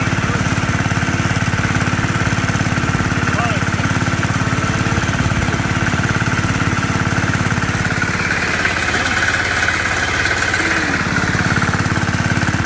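Garden tractor engine running steadily as the machine drives through deep snow. About eight seconds in, a higher whine comes up for a few seconds.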